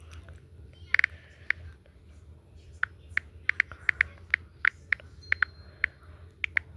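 An irregular run of short, sharp clicks, about seventeen over five seconds, starting about a second in, over a low steady hum.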